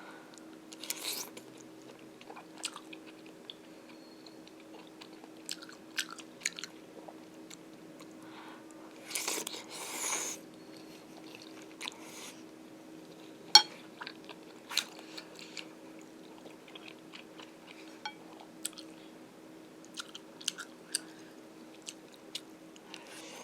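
Close-up eating sounds: chewing of stir-fried fish cake and glass noodles, with scattered sharp clicks of utensils against a dish, over a steady low hum.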